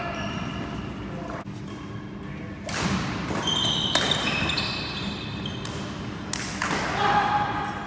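Badminton rally in a large sports hall: sharp racket strikes on the shuttlecock, footfalls and short shoe squeaks on the wooden court floor, with hall echo.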